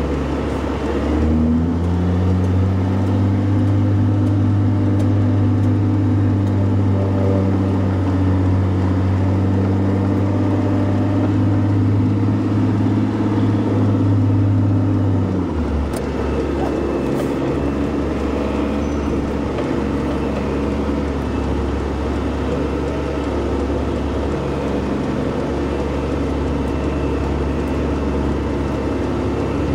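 Peterbilt semi-truck's diesel engine running, heard from inside the cab. Its pitch steps up about a second and a half in and then holds steady. About halfway through the sound changes abruptly to a lower, less even engine sound.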